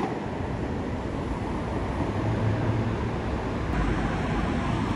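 City street traffic noise: a steady low rumble of passing cars, with wind buffeting the microphone.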